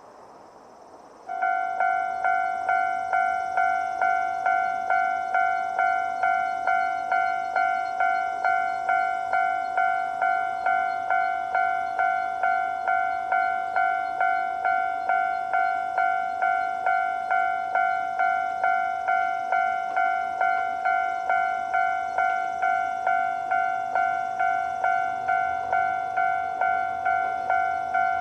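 Japanese level-crossing electronic warning bell, in its standard sound, starts about a second in and rings a steady, even ding-ding at about two strokes a second, each stroke a bright bell-like tone that dies away quickly.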